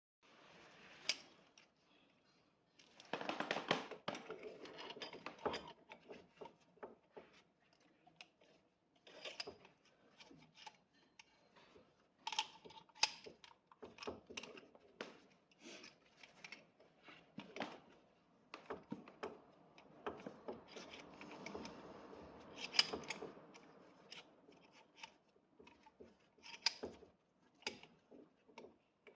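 Hand tools and small metal parts clinking, clicking and scraping in irregular bursts of handling noise, with longer rubbing or scraping passages about three seconds in and again around twenty to twenty-four seconds.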